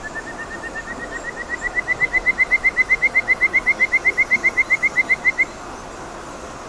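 An animal call made of a fast series of short whistled notes, about eight a second, rising slightly in pitch and growing louder, then stopping abruptly about five and a half seconds in. Steady rushing of the river runs underneath.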